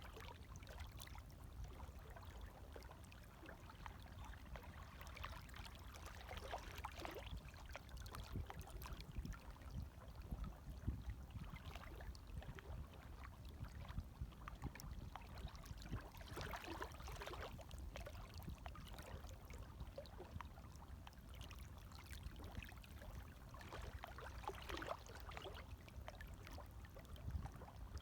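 Gentle waves lapping, with soft splashes every few seconds over a low steady rumble.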